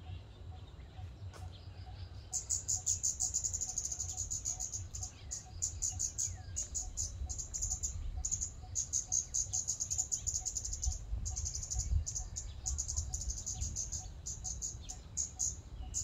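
Scarlet-backed flowerpecker calling: rapid runs of sharp, thin, high-pitched notes that begin about two seconds in and keep repeating with short pauses, over a low background rumble.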